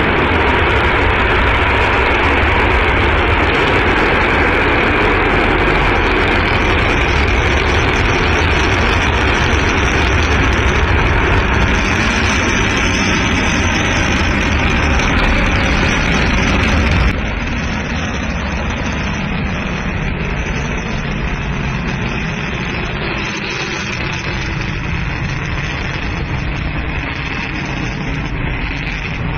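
Long March rocket engines at liftoff and climb-out, a steady rumbling roar heard from a distance. The level drops suddenly about two-thirds of the way through, then carries on.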